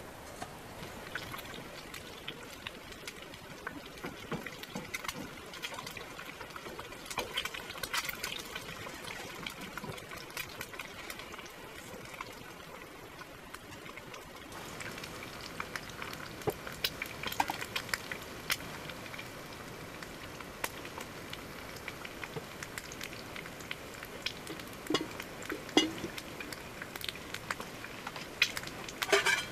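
Cooking on a small wood-burning tent stove: a metal kettle set on the stovetop, then a wooden spoon stirring food frying in a pan, with a light hiss and many small clicks and scrapes. A few sharper knocks come near the end.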